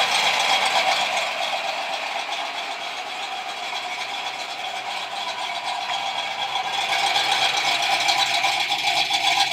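1988 Mustang GT's 5.0-litre (302) small-block Ford V8 idling smoothly and steadily, picked up close to the car around the rear and tailpipe.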